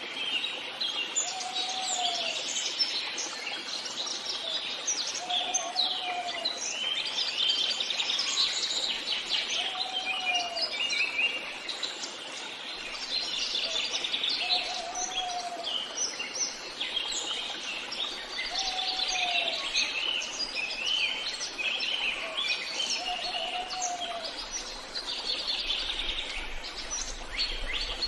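Forest ambience with many songbirds singing and chirping together in a dense, continuous chorus. A lower, single call that rises and falls repeats about every four seconds beneath it.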